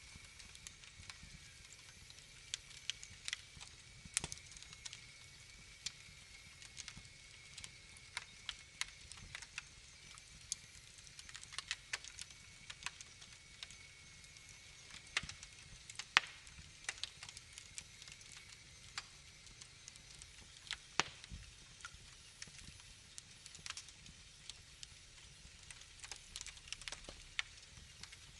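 Wood fire in a fireplace crackling: irregular sharp pops and snaps over a faint hiss, a few louder pops standing out.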